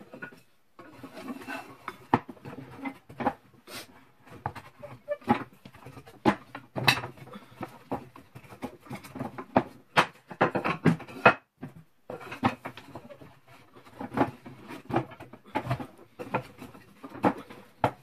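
Wooden slats and dowels of a clothes drying rack knocking and clacking together in irregular taps, with wood rubbing on wood as the slats are fed onto the dowels and slid up.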